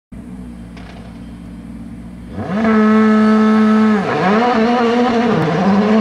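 Skoda Fabia R5 rally car's 1.6-litre turbocharged four-cylinder engine under hard driving. It is fairly quiet at first, then a little over two seconds in it revs up sharply and holds a steady high note. About four seconds in it drops sharply and comes straight back, then rises and falls repeatedly with the throttle.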